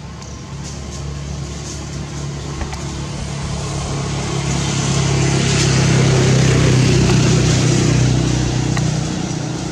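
A motor vehicle's engine droning steadily, growing louder to a peak about six to seven seconds in and then fading as it passes by.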